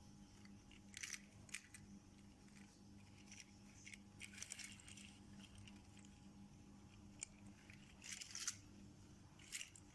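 Faint, scattered clicks and light rattles of small toys being handled and moved, a few at a time, over a low steady hum.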